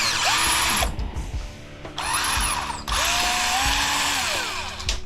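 Power drill running in three bursts, its motor whine rising and falling in pitch as it spins up and slows, backing screws out of an aluminum shower door frame.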